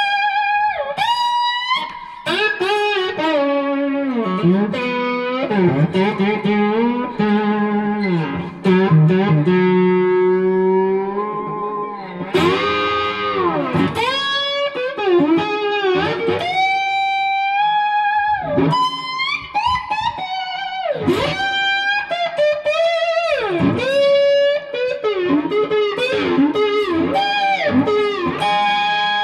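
Electric slide guitar: a Fender Telecaster played with a slide through a Dr. Z Jetta tube combo amp and a Missing Link Audio Hot Lanta pedal. It plays a continuous melodic line, the notes gliding up and down in pitch.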